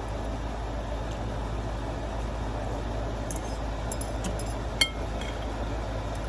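A utensil clinking once against a dish with a short ring, about five seconds in, after a few light ticks, over a steady background hum.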